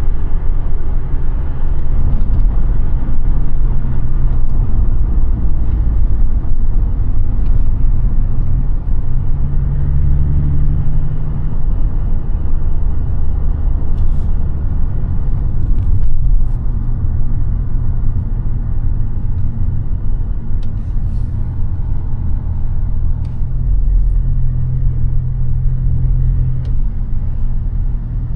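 Audi A5 8T's 3.0 TDI V6 diesel running under way, a steady low engine drone over road and tyre noise. The engine note rises a little about ten seconds in and again near the end as the car pulls.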